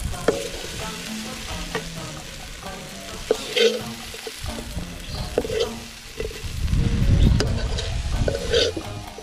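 A ladle scraping and knocking in a pan of snails in oyster sauce as they are stirred and scooped out, with the food sizzling underneath and a run of sharp clicks. A low rumble swells for about two seconds in the second half.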